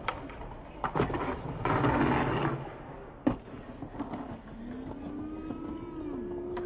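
Skateboard popped onto a stone ledge with a couple of clacks, then a loud scrape of about a second as the board grinds or slides down the ledge, and a sharp clack as it comes down on the paving. From about halfway in, a passing motor vehicle hums, its pitch falling.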